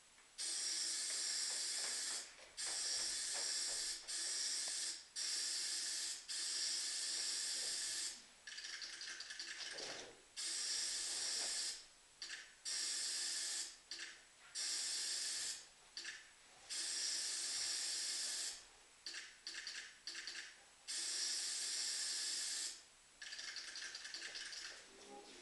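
Paint being sprayed from a nozzle in repeated hissing bursts of a second or two each, with short pauses between them and a few shorter, softer spurts.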